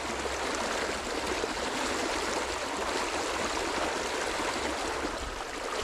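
River water flowing with a steady rush.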